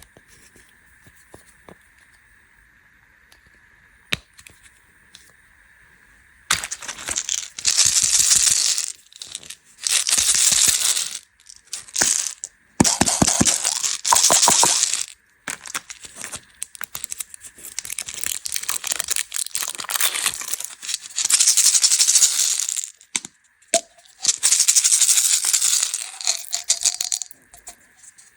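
Candy packaging handled close to the microphone: after a few quiet seconds, repeated bursts of rattling and crinkling, each lasting one to three seconds with short pauses between them.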